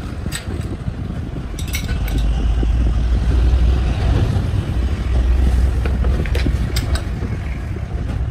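Crankshaft grinding machine running with a low, steady rumble that swells in the middle, with a few light metal clicks as the crankshaft is set up against a dial indicator.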